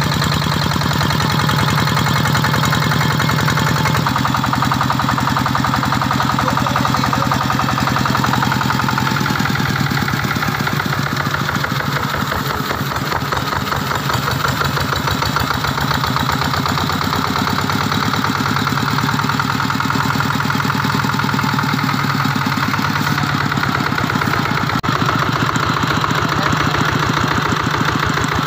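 Vikyno RV145-2 14 HP single-cylinder diesel engine running steadily on a test run, its firing strokes coming as a fast, even chug.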